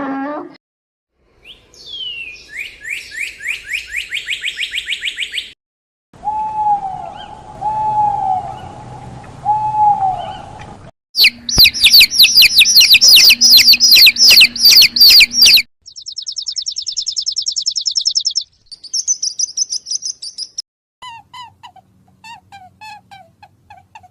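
A series of different birds singing and calling, one short clip after another with abrupt cuts between them: fast trills and chirps, with three slower repeated calls early on and the loudest, a rapid trill, in the middle.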